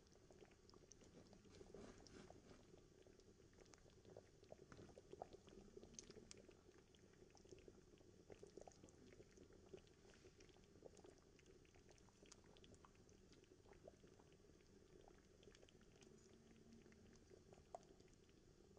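Near silence: faint scattered small pops and clicks from a steel pan of fish curry simmering while a spoon turns the fish pieces.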